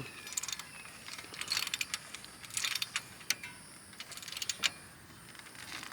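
Ratchet wrench clicking in irregular short runs as a bolt on a wheel hoe blade is tightened.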